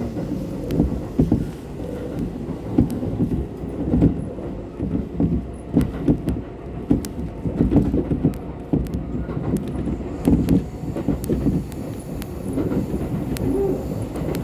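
Kintetsu Nara Line electric train running, heard from inside the carriage: a steady low rumble broken by frequent irregular knocks from the wheels on the track.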